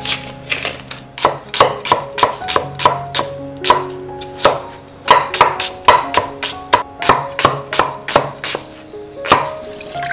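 Cleaver chopping an onion on a wooden chopping block: a fast, uneven run of sharp knocks, about two to three a second, that stops near the end.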